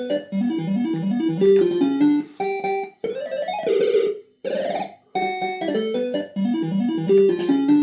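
Electronic tune from a PCP Supa Streak fruit machine: short bleeping melodic phrases with quick rising runs of notes, the pattern repeating about every three and a half seconds.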